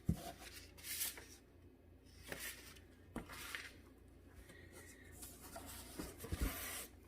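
Paper and cardboard rustling and rubbing as packing is handled by hand, with a couple of light knocks.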